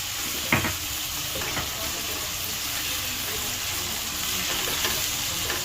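Okra (bhindi) frying in a pan with a steady sizzle, stirred now and then with a few short knocks against the pan, the loudest about half a second in.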